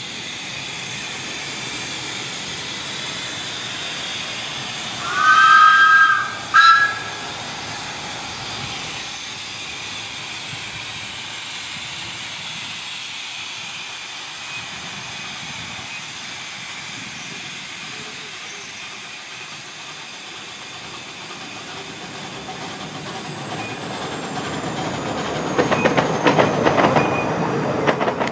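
Exmoor-built 0-4-2T miniature steam locomotive working a passenger train, with a steady hiss. About five seconds in it gives two whistle blasts, one long and one short. Near the end the coaches' wheels clatter loudly over the rail joints as the train comes close.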